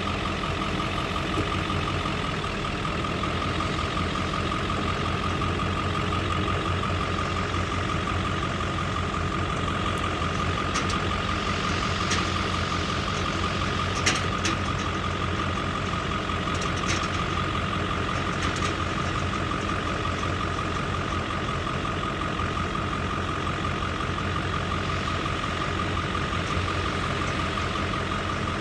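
Heavy farm machinery at corn silage harvest, its engine running steadily: a low drone with a constant high whine over it. A few faint ticks come about halfway through.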